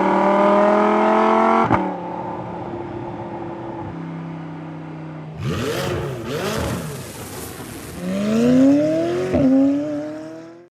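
Lamborghini Huracán's 5.2-litre V10 under acceleration: engine pitch rising and dropping sharply at upshifts, about two seconds in and again just after nine seconds. In between, the revs swoop up and down over a rushing hiss. The sound cuts off abruptly at the end.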